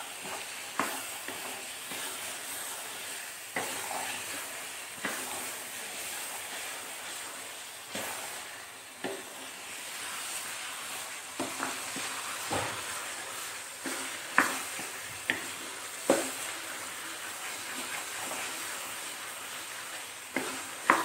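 Chickpea masala frying in oil in a steel karahi, sizzling steadily while a wooden spoon stirs and scrapes through it, with sharp knocks of the spoon against the pan every second or two. The masala is at the bhuna stage, fried down until the oil separates and rises to the top.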